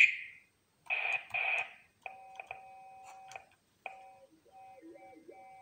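Homemade ESP32 speech-sound synthesizer (the Chatterbox) playing: two short filtered hiss bursts about a second in, then a steady buzzy electronic tone in a few fixed bands like a held synthetic vowel. The tone cuts out and restarts with clicks, and a lower tone wavers briefly near the end.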